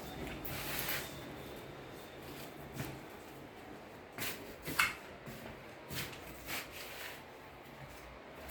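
Scattered light knocks and rustles, a dozen or so at uneven intervals with the sharpest just past halfway, over a faint low hum.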